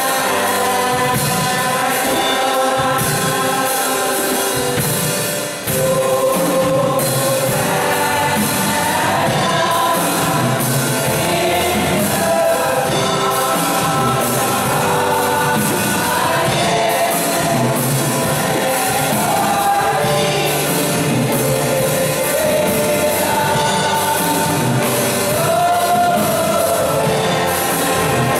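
Women's gospel choir singing together in harmony, voices amplified through microphones.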